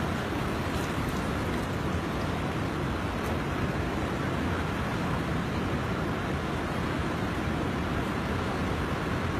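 Steady rushing of a flooded river's fast-flowing water, an even noise at a constant level.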